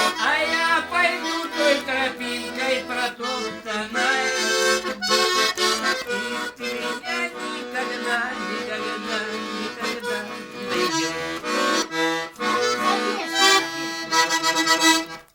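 Garmon (Russian button accordion) playing an instrumental closing passage of a folk song, a melody over repeating bass notes, which stops just at the end.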